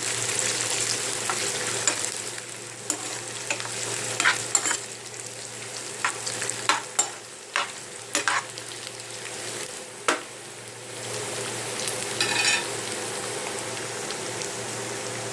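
Chopped garlic, ginger, green chillies and curry leaves sizzling in hot oil in a pan, with a steady hiss, while a spoon or spatula stirs them, knocking and scraping against the pan at irregular intervals.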